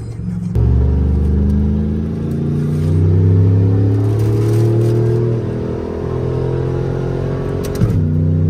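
Pickup's 4.8-litre V8 pulling under acceleration through a TH400 automatic. It comes on loud about half a second in, its note climbing, then drops in pitch about six seconds in and again near the end as the transmission shifts up.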